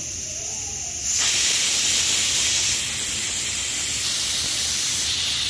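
Aluminium stovetop pressure cooker whistling: the weight on its vent lifts and steam rushes out in a loud, steady hiss that jumps up sharply about a second in. It is one of the three whistles counted to cook soaked cowpeas, the sign that the cooker is up to pressure.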